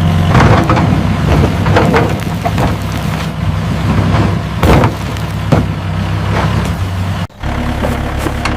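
Mini excavator engine running steadily, with several sharp knocks and scrapes of the bucket digging rocks and soil. Near the end the engine sound cuts out for a moment and comes back at a slightly different pitch.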